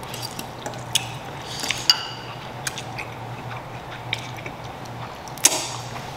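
Fork clinking against a bowl as noodles are eaten: scattered light clinks, a couple ringing briefly about two seconds in, and a sharper clack near the end. A steady low hum runs underneath.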